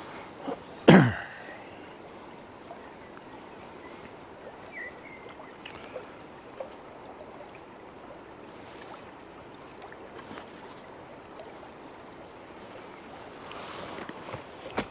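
Steady rushing of a fast, flooded river. About a second in there is one short, loud sound that drops sharply in pitch, and a few faint short chirps come later.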